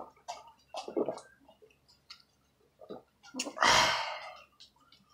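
A man gulping water from a plastic bottle, a few swallows in the first seconds, then a loud breathy exhale of relief after the drink, about four seconds in.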